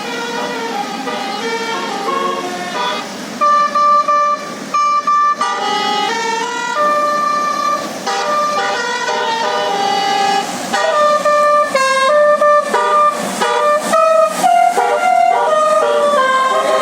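Bus 'basuri' telolet horn, a multi-tone electric horn, playing a tune of held notes that jump from pitch to pitch, with several short sharp blasts and breaks a few seconds in.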